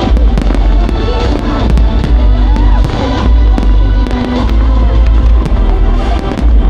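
Fireworks bursting and crackling in rapid succession, mixed with loud music that has a heavy bass.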